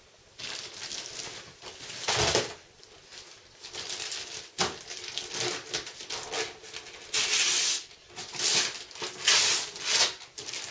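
Christmas wrapping paper being torn and crinkled off a present in a run of irregular rips, the loudest coming in the second half.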